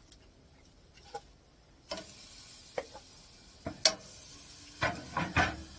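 Metal grill tongs clicking against a gas grill's grate as steaks are laid back on it: a scattered series of sharp clicks, with a faint sizzle coming in about two seconds in as the meat goes onto the hot grate.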